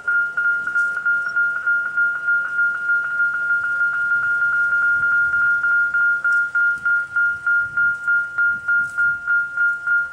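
Railway level crossing warning bell ringing steadily, one high ringing tone struck about four times a second, sounding while the crossing is activated and the boom gate lowers for an approaching train.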